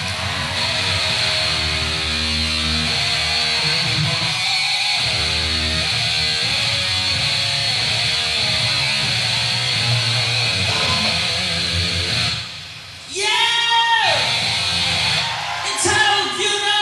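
A heavy-metal band plays live, with sustained distorted electric guitar chords over bass. The playing drops out for a moment about 12 seconds in. A wailing voice then slides down in pitch, and more wailing follows near the end.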